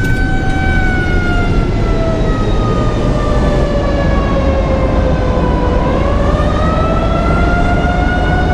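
Civil defence siren sounding in a siren test: one wailing tone that slowly falls in pitch over about five seconds, then rises back up, over steady low background noise.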